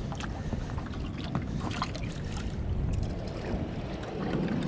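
Steady rushing of spillway water, mixed with wind on the microphone, with a scattering of small clicks and taps over it.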